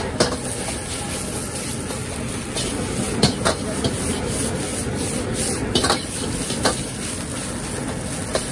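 Fried rice being stir-fried in a wok: a metal ladle scraping and stirring the rice against the wok, with a few sharp clanks of ladle on wok, over the steady roar of a high-flame gas wok burner.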